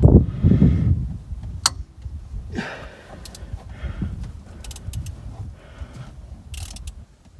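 Hand tools and metal parts clinking and rattling during work on the machine, with scattered sharp clicks over a low rumble that is loudest in the first second.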